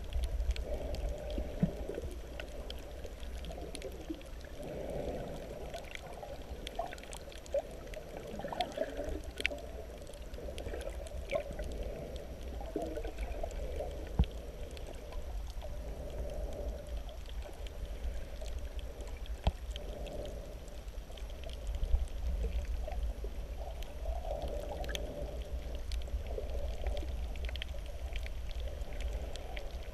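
Shallow-water surge heard underwater: a steady muffled rumble of moving water that swells and eases, with scattered faint clicks and crackles.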